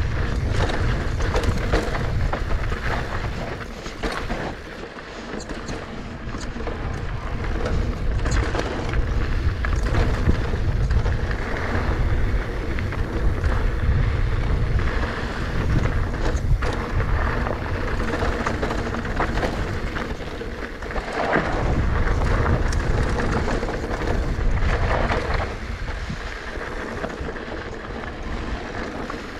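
Wind rumbling on the microphone and tyres rolling over a dirt trail as a mountain bike is ridden downhill fast, with frequent rattles and knocks from the bike over rough ground. There is a short dip in the rumble about four to six seconds in, and another about twenty-one seconds in.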